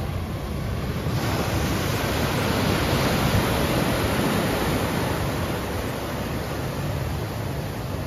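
Ocean surf washing in, a steady rush that swells for a couple of seconds and eases off, with wind noise on the microphone.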